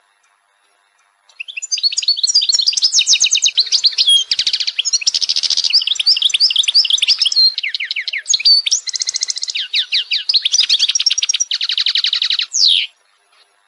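European goldfinch singing: a long run of fast twittering trills and tinkling, chattering notes that starts about a second in and stops shortly before the end.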